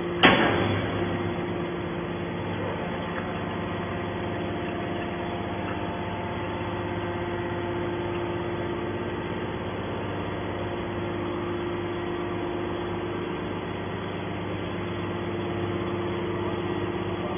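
Hydraulic scrap metal baler's power unit running with a steady hum while the ejector pushes a compressed bale of scrap out. A single sharp clank comes right at the start.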